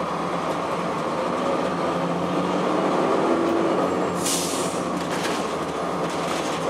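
Inside a 2002 Blue Bird CS transit bus under way: the Cummins ISC diesel engine and Allison automatic transmission drone steadily under road noise, with a short hiss about four seconds in.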